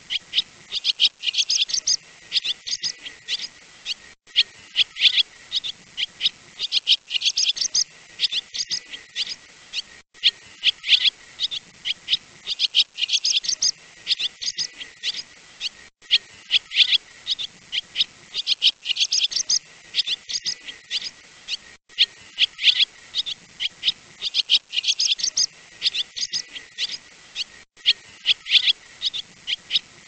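Swallow song: fast, high twittering chirps in rapid runs, with the same phrase coming round about every six seconds.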